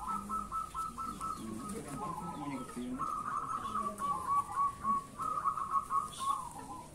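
Caged zebra doves (perkutut) cooing: a quick, rippling run of notes, at times two lines overlapping, that goes on without a break and stops right at the end.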